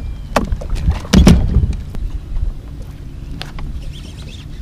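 Wind rumbling on the microphone, with a few sharp knocks in the first second and a half, the loudest about a second in, from gear being handled on a boat's front deck.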